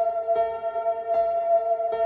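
Ambient background music of steady, ringing, bell-like tones, with a soft note struck about every three-quarters of a second.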